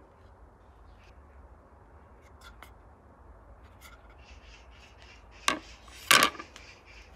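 Turned wooden plates handled and knocked together, with faint rubbing and small clicks, then a sharp clack about five and a half seconds in and a louder clatter just after as one plate is set down on the other.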